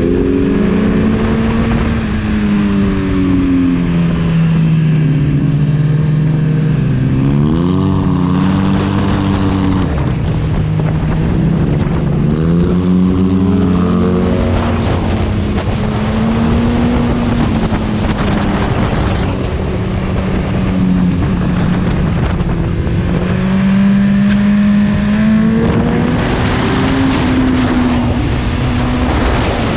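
Motorcycle engine under hard acceleration, its pitch climbing and then dropping abruptly several times as it shifts through the gears.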